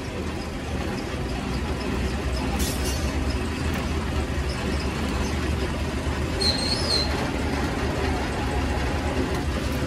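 Hydraulic press running steadily under load, with a low hum and rumble, as its ram presses down on the bent crane boom to straighten it. A brief high squeak comes about two-thirds of the way through.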